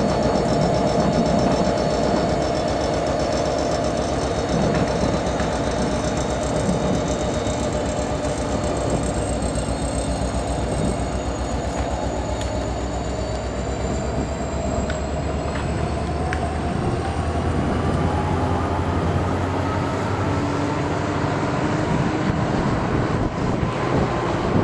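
A train rolling past: a steady rumble of railcars on the track, with high thin squealing from the wheels. One squeal slowly rises in pitch through the second half.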